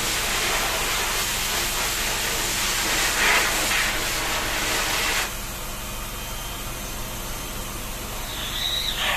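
Water spraying in a steady hiss as a pet bird is showered, cutting off suddenly about five seconds in. Near the end comes a short bird call that drops in pitch.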